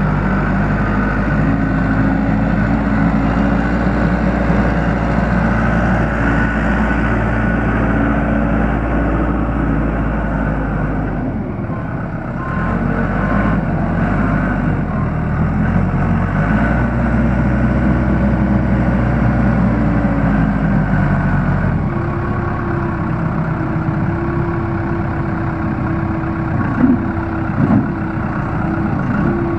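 Case 580L backhoe's diesel engine running steadily. Its note shifts about 11 seconds in and again about 22 seconds in, when a steady hum joins it, with two short knocks near the end.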